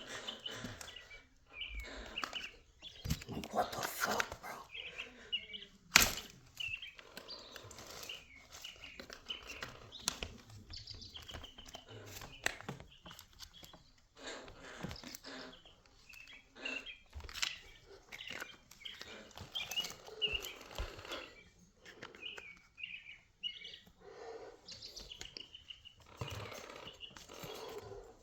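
Birds chirping throughout, over scattered small clicks and knocks of hand tools and parts while an RC car's gears and bolts are worked on; one sharp knock about six seconds in is the loudest sound.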